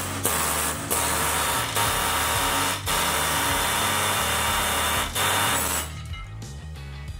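Power tool running in long bursts, with brief breaks about a second in, near two seconds, near three seconds and at about five seconds, then stopping near the end, over background music.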